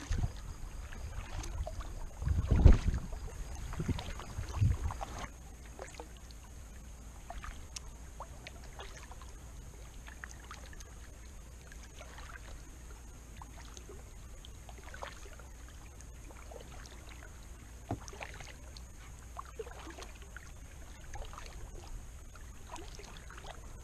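Kayak paddling on calm water: the paddle blades dip and drip, with small splashes and trickles. A few louder low thumps come in the first five seconds, after which it goes quieter, with scattered light drips.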